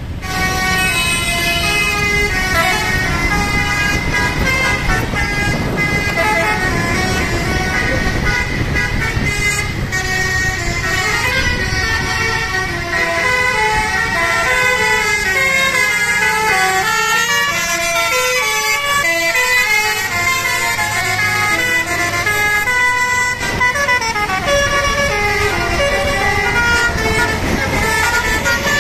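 A bus's basuri telolet air horn plays a long multi-note tune, its notes stepping up and down and sometimes sliding, over the low rumble of the bus.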